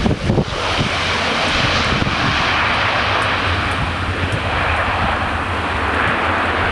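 Bombardier Dash 8-400 airliner's two Pratt & Whitney PW150A turboprop engines running loud and steady as it lands, a broad even roar over a low hum. Wind buffets the microphone in the first half-second.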